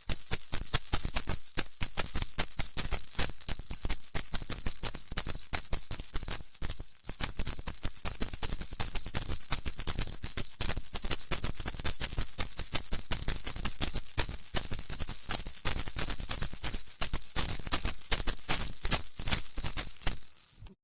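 A pair of maracas shaken in a fast, continuous rattle that stops abruptly right at the end.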